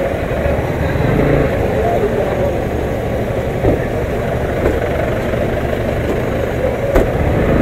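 Motorcycle engine running while the bike rolls along slowly, with steady road and traffic noise and a few short knocks.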